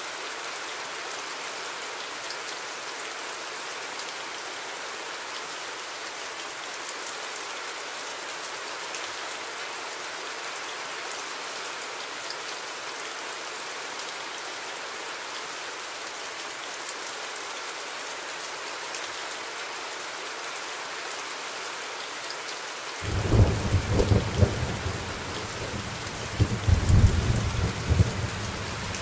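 Steady rain falling, with a long rumble of thunder starting near the end and swelling in several peaks before fading.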